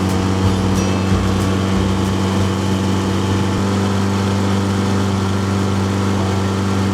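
15 hp four-stroke outboard motor running at a steady speed. Two small knocks sound in the first second or so.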